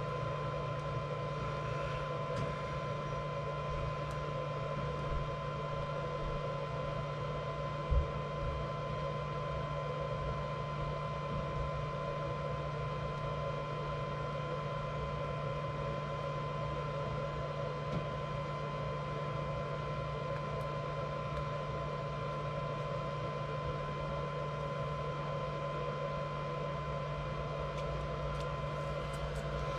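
Steady mechanical hum with a constant high whine held on one pitch; a low thump about eight seconds in.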